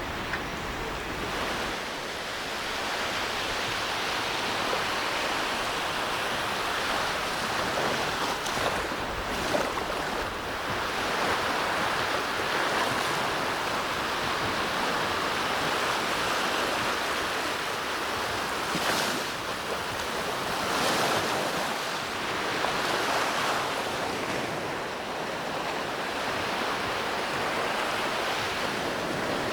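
Small waves breaking and washing up a sandy beach: a steady rushing hiss that swells briefly every few seconds as each wave comes in.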